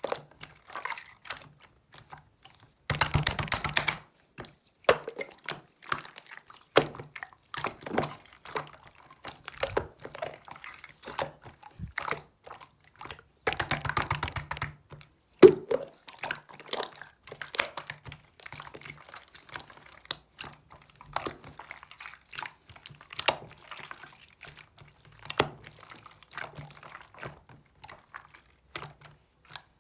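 Kitchen preparation sounds: utensils and containers clicking and knocking, with two short bursts of rapid, rhythmic scraping or stirring.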